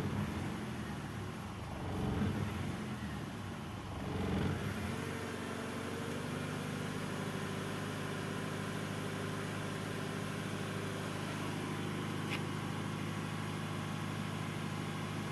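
BMW E90's engine idling, heard inside the cabin while not yet warm. It swells a few times in the first few seconds, then settles into a steady idle.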